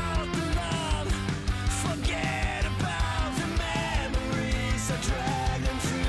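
Background music: a rock song with a steady beat.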